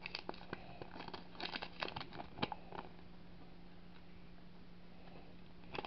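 Light clicks and paper rustles from hands handling small plastic toy pieces and unfolding a folded paper instruction leaflet, clustered in the first three seconds, then little more than a faint steady hum.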